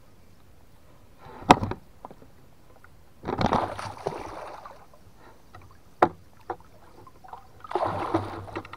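A large crucian carp caught in a gill net thrashes at the water's surface beside a wooden boat as the net is hauled in, in two bursts of splashing about three seconds in and again near the end. A sharp knock about a second and a half in is the loudest sound, with a few lighter knocks in between.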